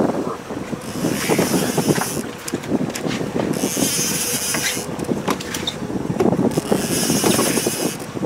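Boat motor running steadily under three spells of high buzzing from a fishing reel as line is worked on a fish, each about a second long and roughly three seconds apart.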